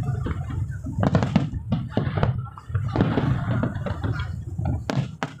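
Aerial fireworks shells bursting: a quick run of sharp bangs about a second in, then two more near the end, over a steady low rumble.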